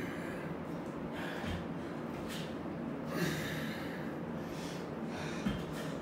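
A man breathing hard and forcefully in separate sharp breaths, a few seconds apart, from the strain of doing pull-ups.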